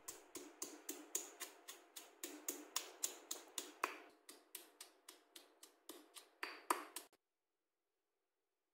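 Stone pestle pounding shallots and garlic into a paste in a stone mortar: a steady run of strikes, about four a second, which stops about a second and a half before the end.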